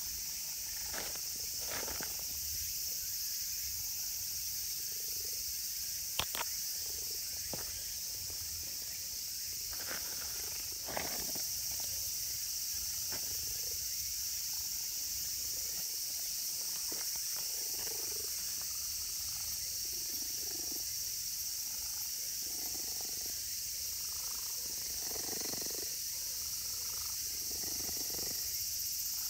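Insects droning steadily at a high pitch, with a few sharp clicks and soft rustles from close handling.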